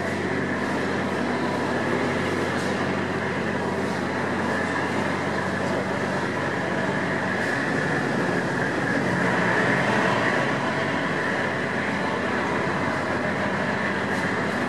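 Tamar-class lifeboat's twin diesel engines running steadily as it backs in toward the slipway, with churning propeller wash; the sound swells slightly about two-thirds of the way through.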